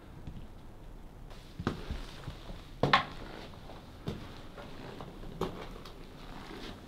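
Slow footsteps: a run of irregular knocks about a second apart, the loudest about three seconds in.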